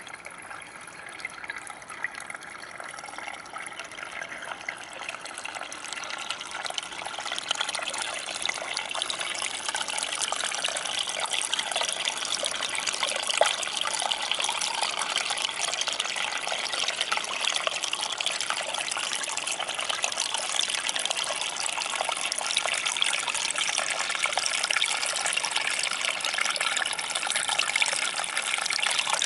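Small winter stream trickling and splashing over rocks, a steady rush of running water. It grows louder over the first several seconds, then holds steady.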